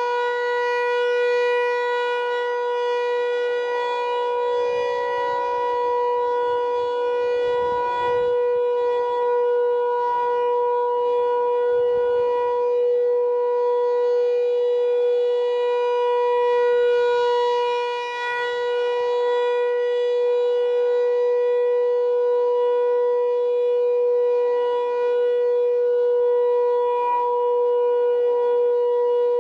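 American Signal T-128 outdoor warning siren sounding a steady alert tone, held at one pitch with a stack of overtones, during a test of the newly installed siren. Its level stays even apart from a brief dip a little past halfway.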